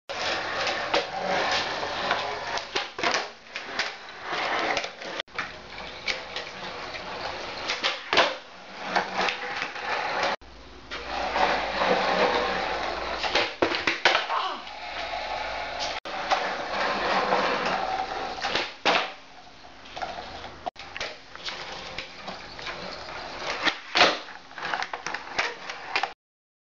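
Skateboard wheels rolling on a concrete garage floor, broken by repeated sharp cracks and clatters of the board being popped, flipped and landing or hitting the floor. The noise breaks off abruptly at several edits.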